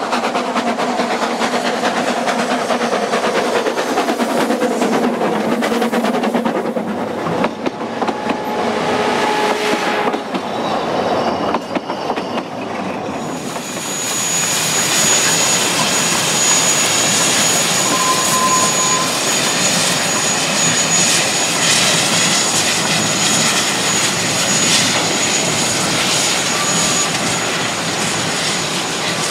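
Narrow-gauge steam train running on the line, the locomotive working and the carriage wheels clicking over the rail joints. About halfway through the sound turns into a louder, steady rushing hiss with a thin high tone in it.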